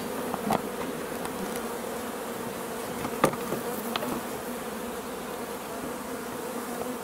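Honey bee colony in an opened hive, buzzing steadily over the frame top bars. A few sharp clicks stand out, the loudest about three seconds in.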